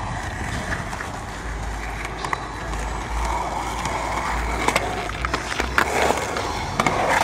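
Skateboard wheels rolling on concrete, a steady rough grind, with a few sharp clacks from the board.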